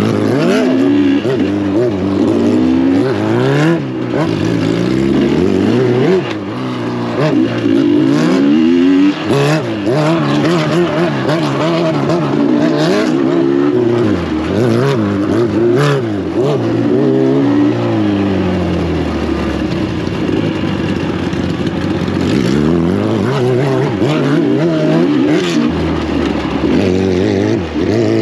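Suzuki Hayabusa's inline-four motorcycle engine being ridden off-road, revving up and easing off over and over as the throttle opens and closes. Several sharp knocks sound through it.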